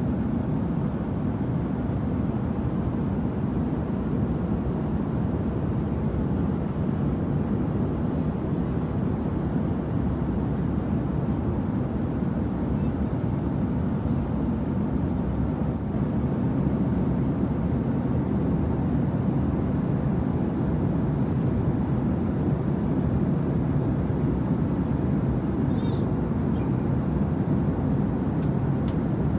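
Airliner cabin noise of an Airbus A330-300 in flight, heard from an economy seat: a steady, even low rushing hum from the engines and airflow. A brief faint clink comes near the end.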